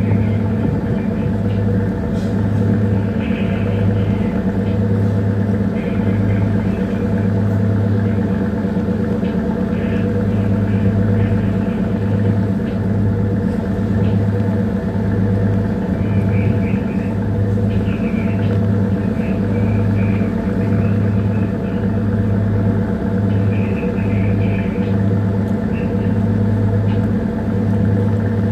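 A small bunker tanker's diesel engine running steadily under way: a deep, even hum with a slow regular throb about once a second.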